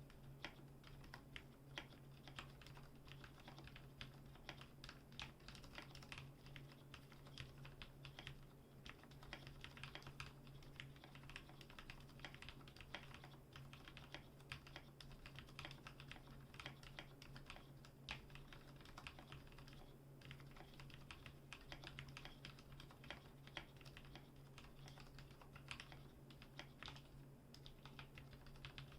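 Continuous typing on a Ducky One 2 mechanical keyboard with lubed Cherry MX Black linear switches and PBT keycaps: a fast, irregular stream of soft key clacks, over a steady low hum.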